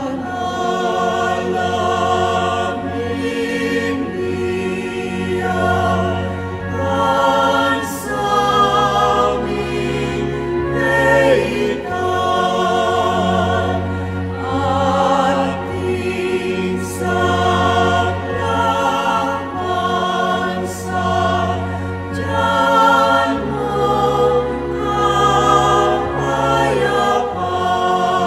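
Choir singing a slow hymn over sustained low accompanying notes that shift every few seconds.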